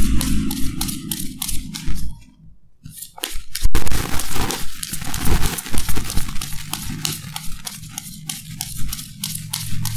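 A deck of tarot cards being shuffled by hand: a rapid run of papery card flicks. The shuffling pauses about two seconds in, a single sharp tap follows, and then it starts again.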